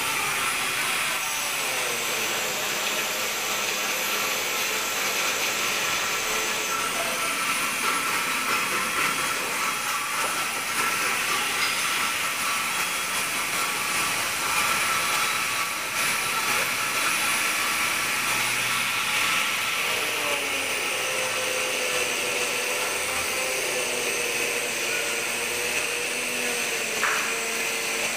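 Steady whirring machine noise, like a motor running without a break, with a few faint tones that slowly waver up and down.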